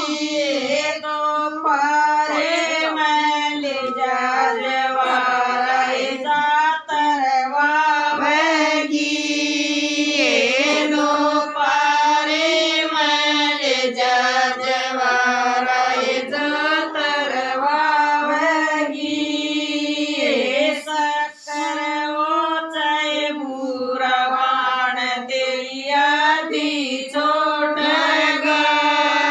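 Women's voices singing a Haryanvi ladies' sangeet folk song (geet) in a repetitive, chant-like melody, phrase after phrase with short breaks between lines.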